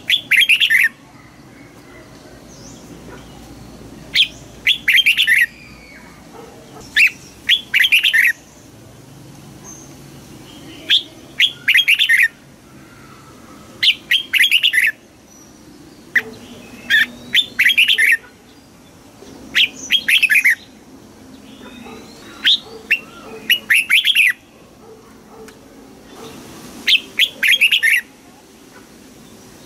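Red-whiskered bulbul singing: short, loud song phrases of about a second each, repeated every two to three seconds.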